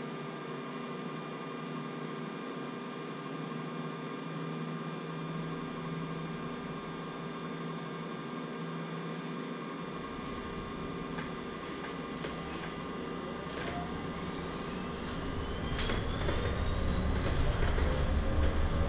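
Inside a Scania electric bus: a steady hum of the idling bus's electrics and air conditioning. About two-thirds of the way in, the electric drive motor starts a rising whine as the bus pulls away and picks up speed, with road rumble and a few rattles of the cabin fittings.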